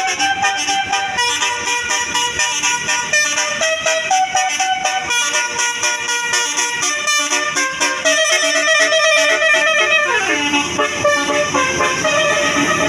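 Telolet basuri musical horn on a tour bus playing a melody, its notes changing about twice a second, with a falling slide in pitch about ten seconds in.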